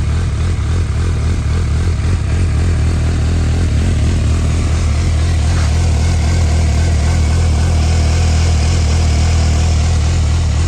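2011 Suzuki GSR750 inline-four motorcycle engine idling steadily through an Akrapovic carbon slip-on exhaust.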